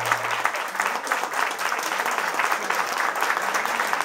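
Audience applauding at the end of a tango song. The music's last held low note dies away about half a second in, leaving only the clapping.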